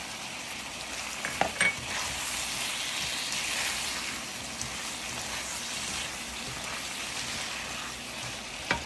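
Diced chicken, onion and bell peppers frying and sizzling steadily in a nonstick pan over high heat, stirred with a spatula, with soy sauce just poured in. A few sharp knocks land about a second and a half in and again near the end.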